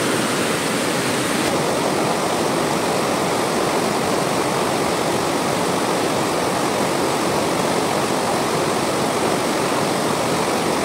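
Shallow rocky river rushing over rapids: a steady, even rush of water.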